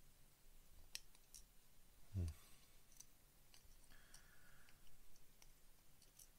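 Steel tweezers clicking and tapping against small plastic model-kit parts while a tiny part is fitted into a cockpit tub: a few faint, separate clicks over near silence.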